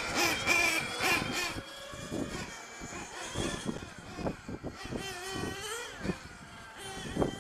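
Several 1/8-scale nitro RC GT cars' small two-stroke glow engines running, their high-pitched whines rising and falling as they accelerate and lift through the turns. The sound is louder for the first second and a half, then drops back.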